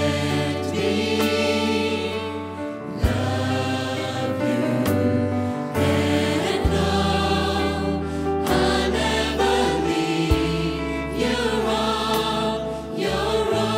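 Gospel music with a choir singing over sustained bass notes, the chords changing every few seconds.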